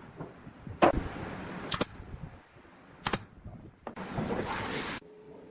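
Hand woodworking on timber: four sharp knocks about a second apart, then a rasping stroke lasting about a second that stops abruptly.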